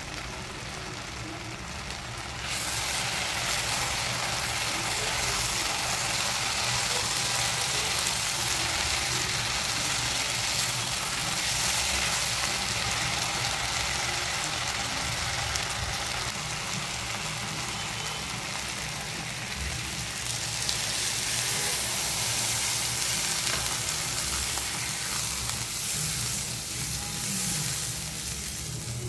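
Potato chunks frying in spiced oil in a nonstick wok: a steady sizzle that grows louder about two seconds in, with a silicone spatula stirring through the pan.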